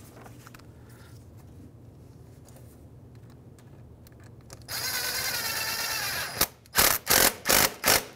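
Cordless drill with a socket extension driving a hose clamp's screw. It starts about halfway in with one steady run of about a second and a half, its pitch wavering. Several short bursts follow as the clamp is snugged down.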